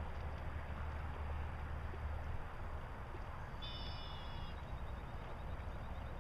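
Steady low drone of a boat's outboard motor running out on the river, under wind noise on the microphone. About two-thirds of the way in comes a brief high-pitched chirp.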